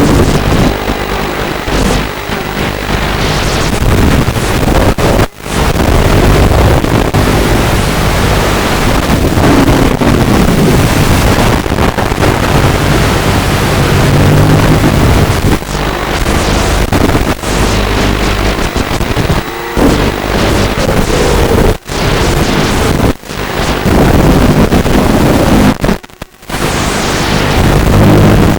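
Walkera F210 racing quadcopter's brushless motors whining, their pitch rising and falling with the throttle, over a loud rushing noise. The sound cuts out briefly a few times.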